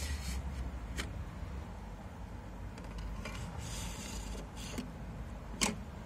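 Knives being handled in a plastic knife block: rubbing and scraping of knife blades and handles against the slots, with a sharp click about a second in and a louder click near the end. A low rumble runs underneath.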